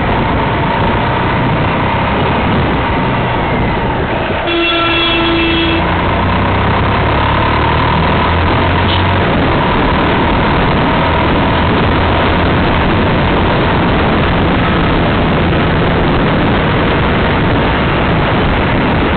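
Steady, loud engine and road noise from a Bajaj Pulsar motorcycle riding in city traffic, picked up by a camera clamped to the bike. A vehicle horn honks once for about a second, about four and a half seconds in.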